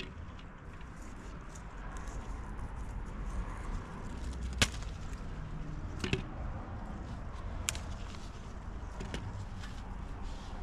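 Hand-picking apples into a white plastic colander: a few sharp knocks and clicks, the loudest about halfway through, over a low rumble of handling noise.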